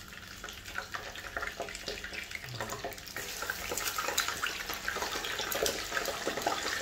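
Tilapia pieces sizzling and crackling in hot cooking oil in a frying pan, the crackle growing louder about halfway through as more pieces go into the oil.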